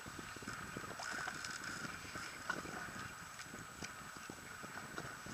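Sea water lapping and splashing against an inflatable boat's tube, with wind on the microphone and scattered small clicks and knocks.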